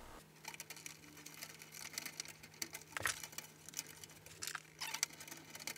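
Light scattered clicks, scrapes and rustles of a screwdriver and a power cable being handled and fastened inside a plastic overhead-projector housing, with one sharper click about halfway through. A faint steady hum lies underneath.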